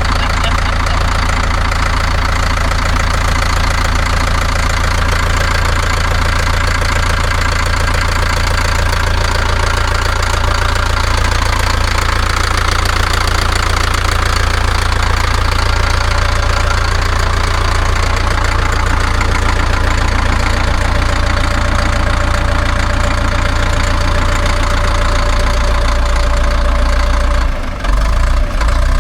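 1977 Caterpillar D4 bulldozer's diesel engine running steadily after being started following years of standing. Its sound dips briefly near the end, then carries on.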